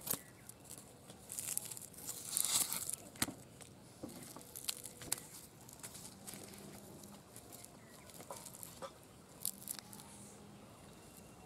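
Charred skin of a fire-roasted drumstick (moringa) pod crackling and tearing as it is peeled and split open by hand on a banana leaf, in scattered sharp crackles and rustles, loudest about two to three seconds in.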